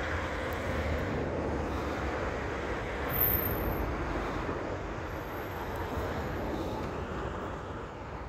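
Steady rumble of a distant engine passing by, easing off a little near the end.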